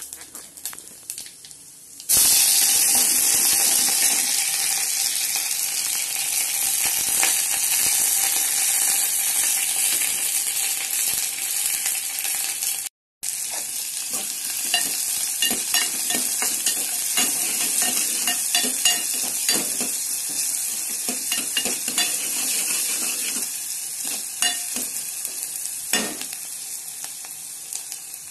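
Chopped onions and green chillies hit hot oil in an aluminium pot: a loud sizzle starts suddenly about two seconds in and keeps frying steadily, with a metal ladle stirring and scraping against the pot. The sound cuts out for a moment around the middle.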